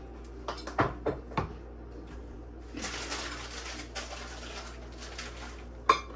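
Household knocks and clatter, then about three seconds of hiss like water running from a tap, ending in one sharp knock.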